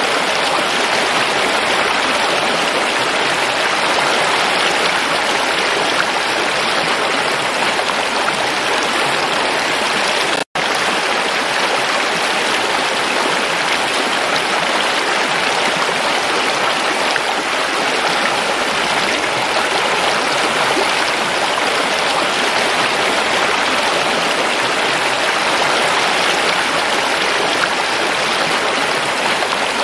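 Shallow stream flowing steadily over rocks, a continuous rush and splash of water, with a split-second dropout about ten seconds in.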